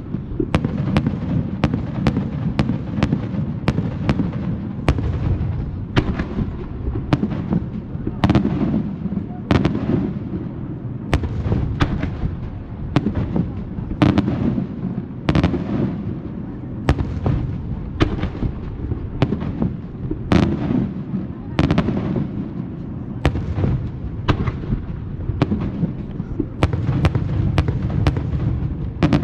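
Fireworks display going off: a rapid, irregular barrage of sharp bangs and cracks, several a second, over a continuous low rumble of explosions.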